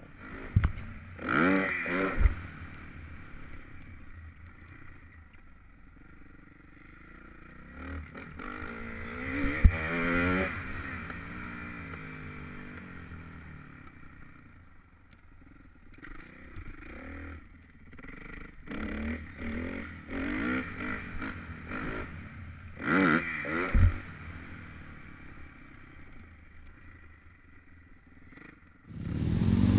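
Dirt bike engine revving up and falling back in three main bursts between quieter stretches of lower throttle, with a few sharp knocks and clatter from the bike.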